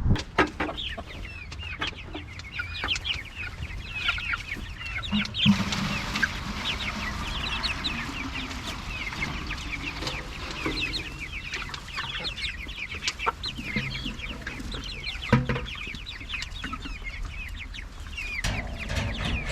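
A flock of chickens clucking and peeping, with many short, high, falling calls overlapping without a break. A few sharp knocks sound, around a quarter of the way in and again past the three-quarter mark.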